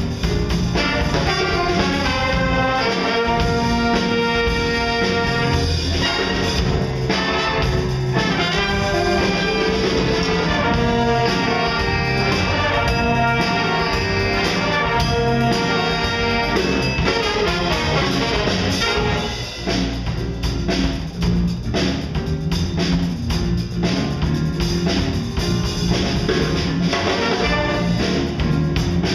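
Jazz big band playing, with trumpets, trombones and saxophones over piano and drums. Long held brass chords in the first half give way to a choppier passage with drum hits about two-thirds of the way in.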